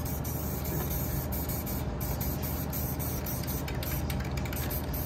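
Aerosol spray-paint can spraying onto a board: a steady hiss broken by short gaps as the nozzle is pressed and released, over a steady low hum.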